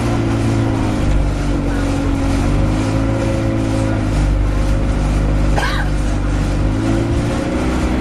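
Alexander Dennis Enviro200 Dart bus running, its engine note rising and falling as it pulls away and changes gear, with a steady run of loud ticks. A brief rising squeak sounds about two-thirds of the way through.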